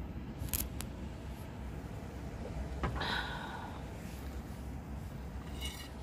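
A metal spoon clicking and scraping against a coated camping griddle: a couple of sharp clicks early, a short scrape in the middle and a ringing clink near the end, over a low steady rumble.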